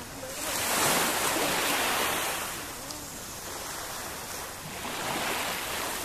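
Small sea waves washing onto a sandy beach. One wash swells up about half a second in and lasts about two seconds, and a softer one comes near the end.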